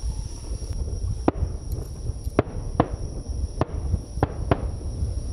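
Aerial firework shells of a starmine bursting: about six sharp booms, irregularly spaced, from about a second in to near the end, over a steady low rumble.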